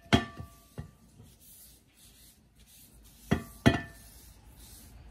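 Ceramic plate knocking against the rim of a glass bowl as grated cassava is pushed off it by a gloved hand, with soft rustling between: a knock just after the start, a lighter one a little later, and two sharp, ringing knocks close together about three and a half seconds in.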